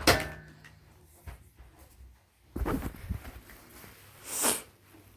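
A sharp knock with a short ringing tail, then a few dull knocks and a brief swish, from plastic vacuum cleaner parts being handled.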